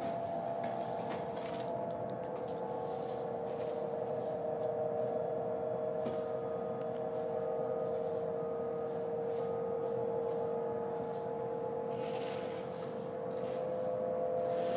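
An unexplained hum in the sky: a steady drone of several close, sustained tones, with faint short beeps about once a second in the middle, growing louder near the end. It seems to come from all around, and its source is unknown, possibly machinery.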